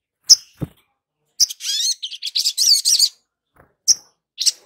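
Olive-backed sunbird calling: a sharp high chirp, then a quick twittering song of rising and falling notes lasting about a second and a half, then two more single chirps near the end.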